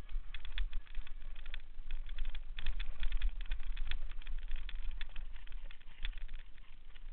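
Mountain bike rattling and clattering as it rides down a rocky trail, heard from a camera mounted on the bike: rapid, irregular clicks and knocks over a low, uneven rumble.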